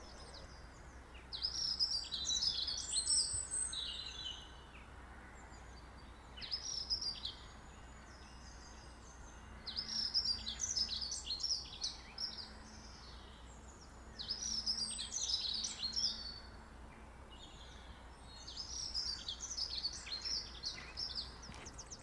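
A songbird singing, repeating a short phrase of quick, varied high notes every four to five seconds, over a faint steady background noise.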